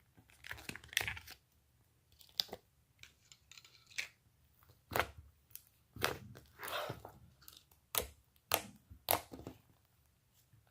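Hands squishing and poking slime, giving irregular crackles and pops.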